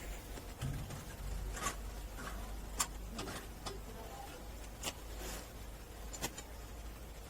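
Scattered light clicks and knocks, about half a dozen spread irregularly, as a new air filter element is handled and fitted into a compressor's air filter housing, over a faint low hum.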